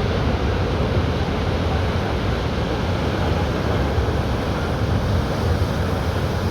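Wind rumbling steadily on the microphone over waves breaking at sea.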